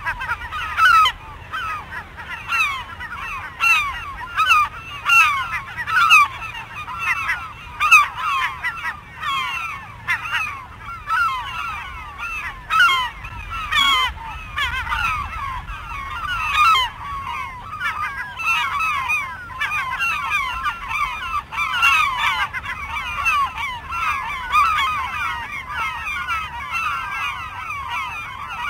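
A flock of gulls calling over one another: many short, falling calls overlap densely without a pause.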